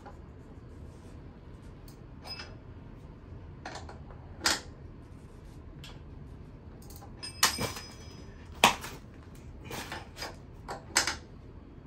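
Hand tools being handled and sorted while assembling an e-bike: a run of separate short clinks and knocks, the loudest about two-thirds of the way through.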